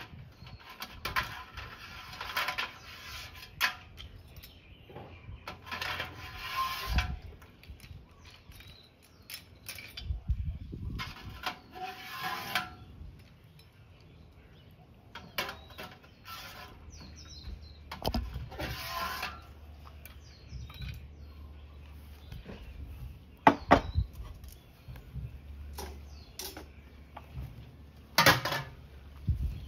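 A metal ladle scoops steamed clams out of a stockpot and onto a plate: repeated scraping and rattling of shells against metal, with a few sharp clinks in the second half.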